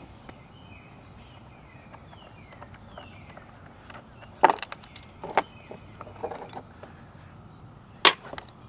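Light metallic clinks and rattles of a hand tool and small hardware as nuts are taken off a metal bracket, with sharp clinks about four and a half, five and a half and eight seconds in.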